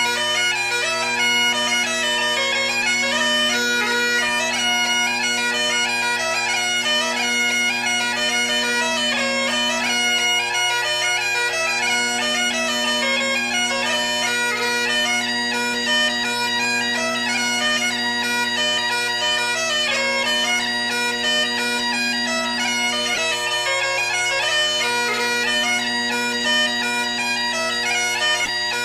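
Bagpipe music: steady drones held underneath a fast chanter melody.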